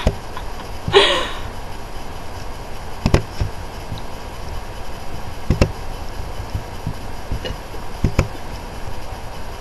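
A short breathy burst about a second in, then several sharp clicks or taps spaced a few seconds apart, over a steady low hum.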